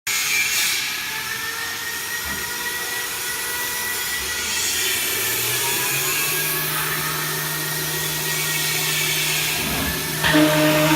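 1325 ATC CNC router running, a steady machine noise with a faint whine that drifts a little in pitch. About ten seconds in it gets louder as a strong steady hum starts.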